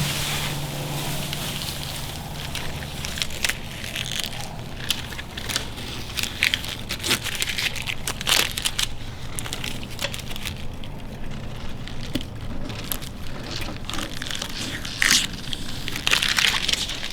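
Masking tape being peeled off and crumpled: an irregular run of crackles and crinkles.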